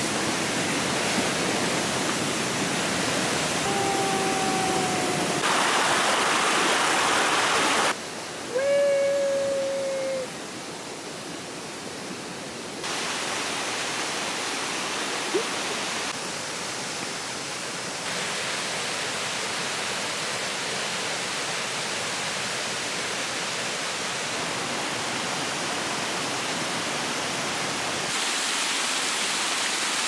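Rushing water of a rocky river's rapids and a small waterfall, a steady rush that jumps in level at several abrupt cuts. Two brief pitched calls, each gliding slightly, sound over it about four and nine seconds in.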